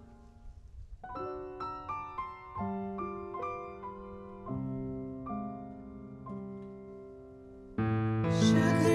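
Piano playing a slow, quiet instrumental passage of single notes and chords that ring out and fade. A much louder, fuller accompaniment comes in near the end.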